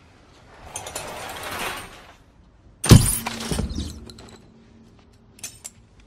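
A single loud shot from a silenced shotgun about three seconds in, followed by about a second of clattering, with a few sharp clicks near the end. Before the shot a hiss swells and fades.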